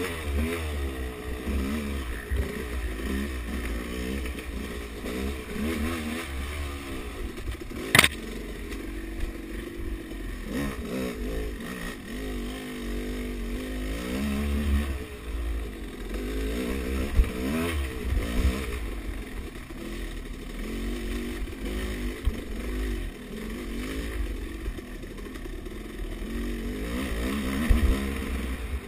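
Off-road dirt bike engine revving up and down continuously as the bike is ridden over a rough dirt trail, with a sharp knock about eight seconds in.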